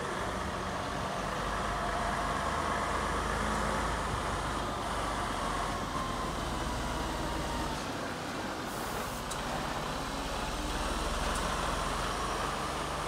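Heavy Mercedes-Benz tractor unit's diesel engine running steadily as it slowly pulls a loaded low-loader trailer past, with a short high hiss about nine seconds in.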